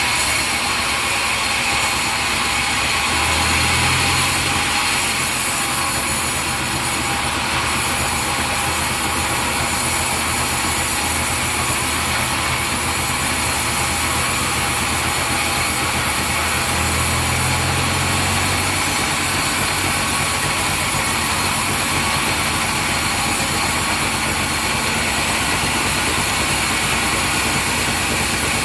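Sawmill machinery running steadily with a loud, even whir. A deeper hum swells briefly twice, a few seconds in and again past the middle.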